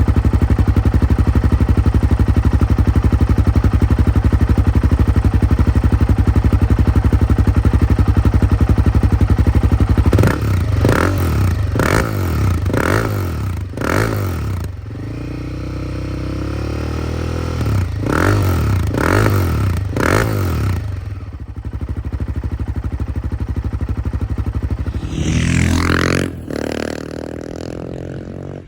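Royal Enfield Himalayan 450's single-cylinder engine breathing through a full HP Corse titanium exhaust system (larger free-flow downpipe, de-cat pipe and silencer), idling steadily. About ten seconds in come a run of quick throttle blips, a short idle, a second run of blips, and near the end one longer rev that rises and falls.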